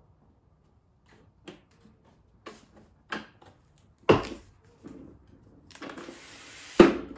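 Hard plastic clicks and knocks from a DeWalt TSTAK trolley being handled as it is unpacked, the loudest about four seconds in. Near the end comes about a second of sliding rustle, cut off by a sharp knock.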